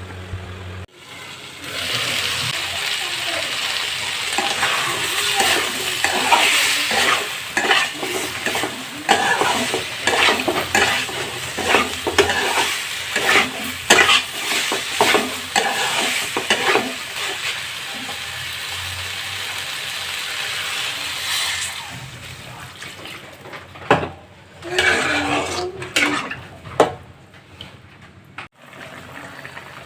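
Food sizzling as it fries in a pan, with a spatula stirring and scraping it in repeated knocks against the pan. The sizzle drops to a quieter level about three-quarters of the way through, and the stirring goes on more sparsely.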